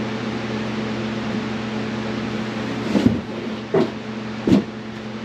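Wooden 2x4 bed frame being knocked into place on the carpeted floor: three dull knocks in the second half, over a steady hum.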